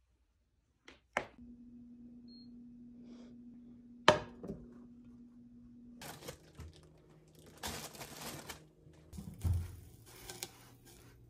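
Handling sounds: a few sharp clicks as a tablet's folio cover is opened, over a faint steady hum. About six seconds in, kitchen handling follows: rustling and slices of bread set down in a frying pan with soft thuds.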